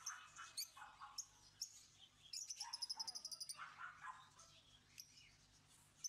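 Caged lovebirds chattering faintly. A quick burst of rapid high chirps comes about two and a half seconds in, with scattered single chirps and lower squawks around it.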